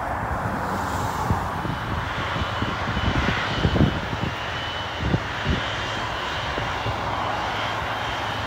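Boeing 777-200 jet engines running at low taxi power as the airliner turns on the runway: a steady whooshing hiss with a thin, high, steady whine. Irregular low thumps come and go underneath.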